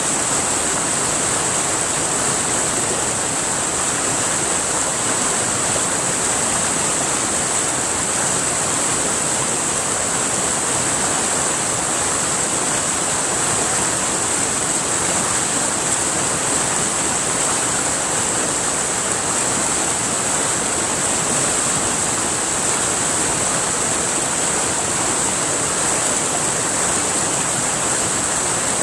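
A river rushing steadily, a constant even sound of flowing water.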